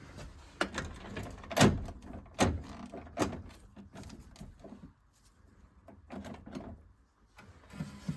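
A series of sharp knocks and clicks, about one a second, the loudest about a second and a half in, with a quieter stretch in the second half.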